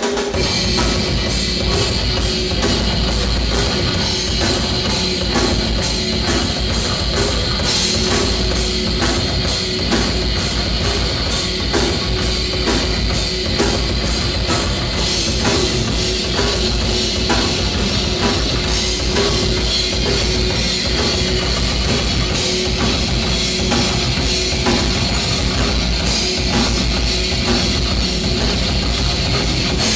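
Heavy metal music: a drum kit keeping a steady beat under electric guitar and bass, loud and unbroken.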